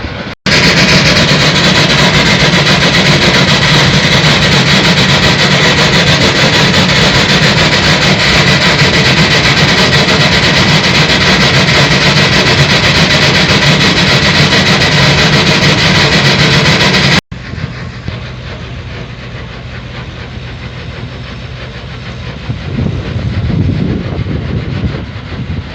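Uncontrolled gas blowout from a well: a very loud, steady rush of escaping gas that starts and stops abruptly. It is followed by a much quieter steady rush with a low engine hum coming up near the end.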